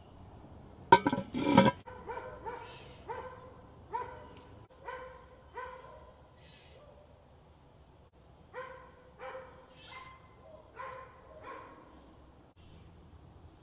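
A dog barking: two loud barks about a second in, then a run of quieter barks about two a second, a pause, and another run.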